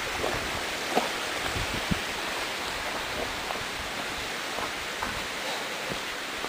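Steady rushing outdoor noise with scattered faint taps and crackles, the sharpest about one and two seconds in.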